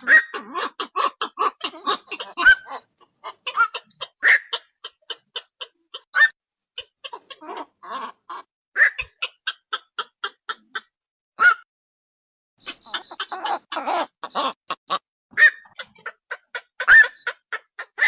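Black-crowned night heron calls: a rapid run of short, harsh calls at several per second, broken by louder single calls every couple of seconds and a brief pause about twelve seconds in.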